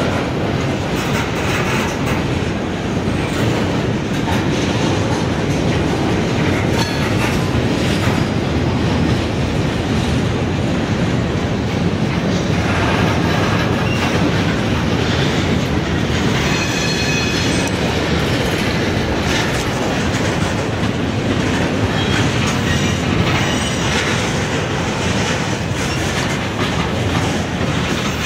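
Freight train of covered hoppers and tank cars rolling slowly past, a steady rumble with the clickety-clack of wheels over the rail joints. Past the middle a brief high-pitched wheel squeal rises over the rumble.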